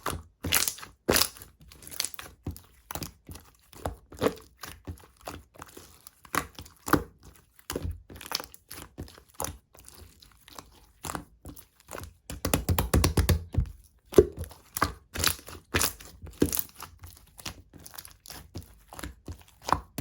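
Clear slime being squeezed and pressed by hand, making irregular sharp pops and clicks of trapped air. A denser run of crackling comes a little past the middle.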